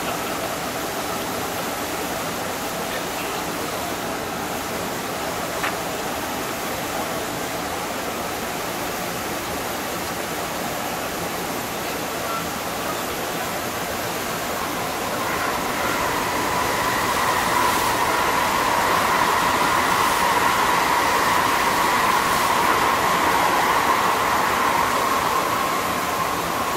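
An electric train running, a steady whine coming in about halfway and growing louder before easing near the end, over a steady outdoor hiss.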